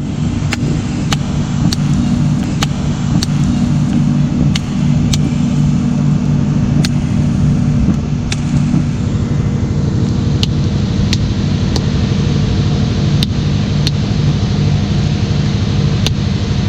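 Boat engine running steadily, with a light tick repeating about twice a second.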